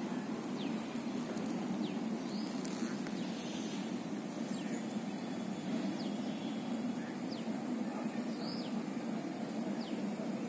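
Outdoor background: a steady low rumble, with short, falling high-pitched bird chirps every second or two.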